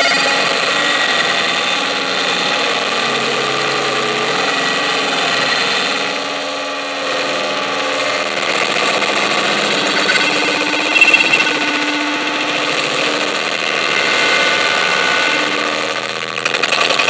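Harsh noise music: a continuous, dense wall of distorted noise with shifting held tones, and a brief louder burst about eleven seconds in.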